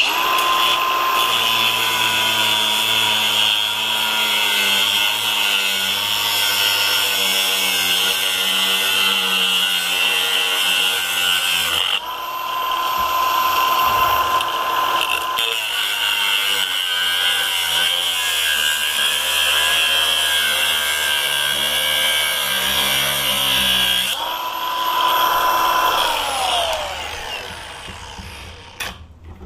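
Powered abrasive cutoff wheel cutting into the steel body of a disk padlock, its whine dropping in pitch under load. About 12 s in it runs free at a steady higher pitch for a few seconds before cutting again. Near the end it runs free once more and then winds down, the pitch falling as it stops.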